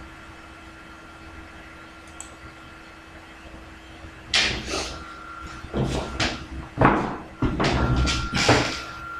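Faint steady hum, then from about four seconds in a run of irregular knocks, bumps and rustles.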